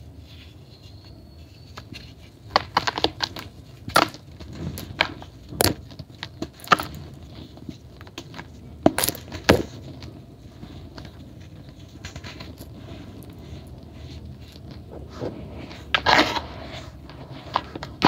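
Hands crushing and crumbling a dry, gritty grey block over a plastic basin of powder: irregular crunches and crackles in clusters, a few seconds in, around nine seconds and again around sixteen seconds, with softer rubbing of grit and powder between.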